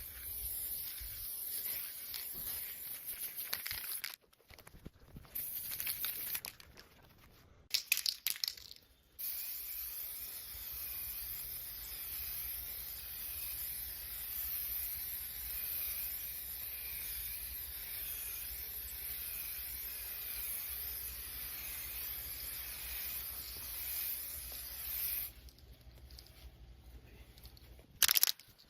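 Paint being sprayed onto a car fender as a first coat: a few short bursts of hiss with gaps between, then a long steady hiss of about fifteen seconds that stops a few seconds before the end. A sharp click sounds near the end.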